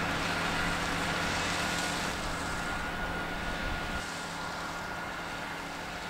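Valtra T214 tractor's six-cylinder diesel engine running steadily under load, pulling a six-furrow plough with a flail mower working on the front. A faint, steady high whine sits above the engine.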